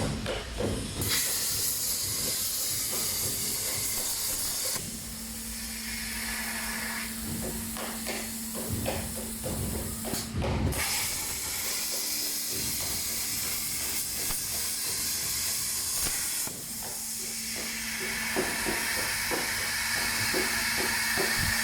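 CNC plasma cutting torch cutting steel plate: a steady, loud hiss with a low steady hum under it. The hiss breaks off briefly about ten seconds in, when the arc stops and restarts, and its tone shifts a few times.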